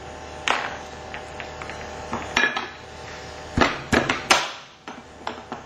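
A wooden-handled tool knocking on a thick 10 mm glass shelf as it is broken in half: a series of sharp knocks and clinks, the loudest coming in a cluster about two-thirds of the way in.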